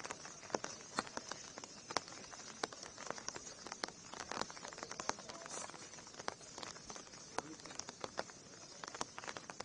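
Heavy rain pattering: a steady hiss of falling rain with many irregular sharp ticks of drops striking close by.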